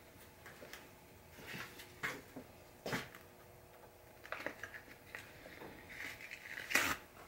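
Faint, scattered knocks and clicks of tools and wood being handled at a workbench, about half a dozen spread out, with the loudest near the end, over a faint steady hum.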